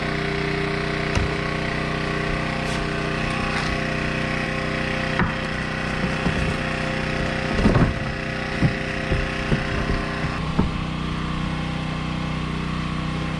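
Wood knocking and creaking as framing lumber is handled and worked into place. Scattered knocks come through, with a louder cluster about eight seconds in, over a steady mechanical hum.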